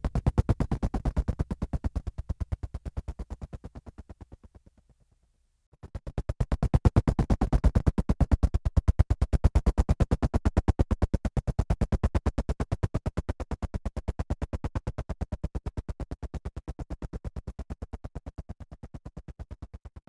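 Background music: a fast, evenly pulsing synthesizer pattern. It fades out and breaks off for a moment about five seconds in, then comes back in and slowly fades toward the end.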